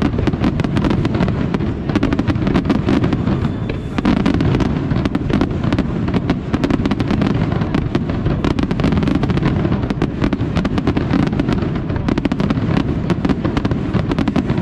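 Aerial fireworks display: a dense, continuous barrage of rapid cracks and bangs from bursting shells over a heavy, steady rumble.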